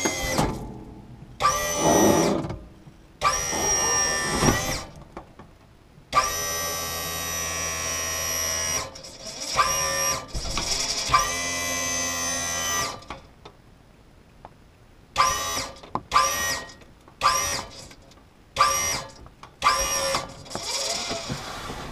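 RV leveling-jack motor whining as it raises the RV on its legs. It runs in stop-start bursts: a few runs of a second or two, one long run of several seconds in the middle, then a string of quick half-second blips near the end.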